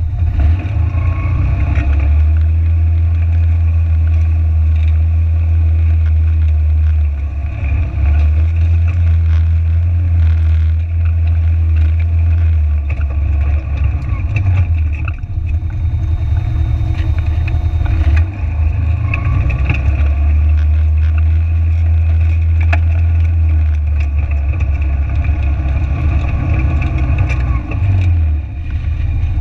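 Side-by-side UTV engine running steadily under throttle while driving over a gravel riverbed, with a low drone that eases off briefly a few times as the throttle is lifted.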